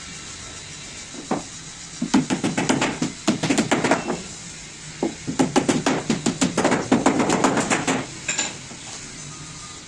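Small hammers tapping rapidly along the edge of a moulded door skin laid over a wooden door frame, several taps a second. One tap comes about a second in, then two runs of taps follow, with a short pause in between.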